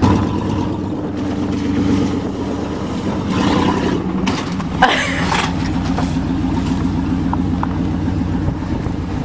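A 1988 Chevrolet pickup's engine running steadily as the truck is driven, with a couple of short noisy bursts near the middle.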